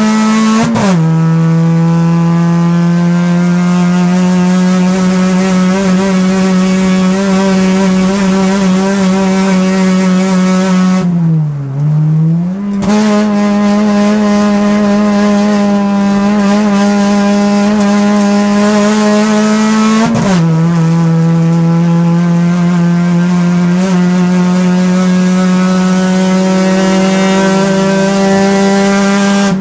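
Race car engine heard from inside the cockpit, running hard at high revs with its pitch climbing slowly. The note drops sharply with a gear change about a second in and again about two-thirds of the way through, and sags briefly just before halfway as the throttle is lifted and reapplied.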